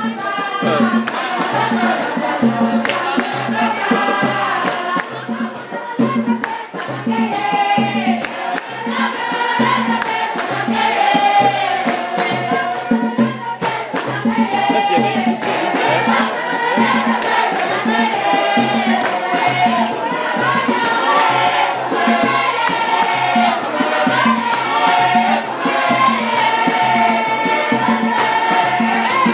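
Choir singing an offertory hymn over a steady percussion beat.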